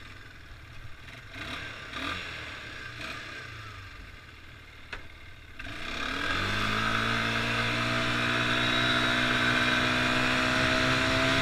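Quad bike engine running low and gentle while still cold, then about six seconds in it opens up and pulls harder, its pitch climbing slowly and steadily as the quad gathers speed.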